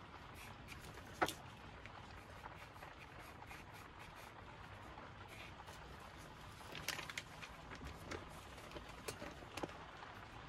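Soft 9B graphite pencil scratching in short strokes on rough watercolour paper, with a sharp click about a second in and a run of quick clicks and scrapes near the end.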